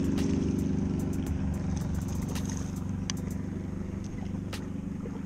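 Steady low motor hum, a continuous drone from an engine or traffic, a little louder in the first second, with scattered light clicks over it.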